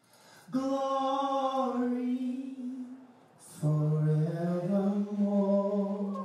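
A lone voice singing unaccompanied in a chant-like style, holding two long notes, the second stepping up in pitch partway through. A short hiss falls between the two notes.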